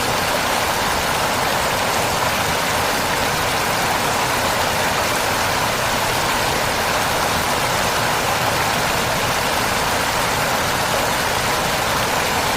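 Big waterfall rushing: a steady, unbroken roar of falling water.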